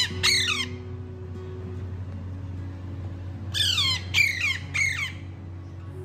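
Young Alexandrine parakeet squawking while it is hand-fed: harsh calls that each drop in pitch, one or two right at the start, then three in quick succession about four to five seconds in.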